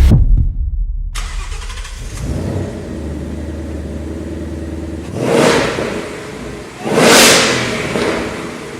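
Supercharged V8 of a ROUSH JackHammer Mustang starting up about a second in and idling, then revved twice, each rev rising sharply and dying away.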